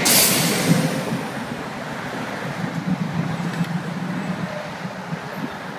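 City street traffic: cars and vans driving past, with a steady low engine hum throughout. A brief, loud rush of noise comes right at the start.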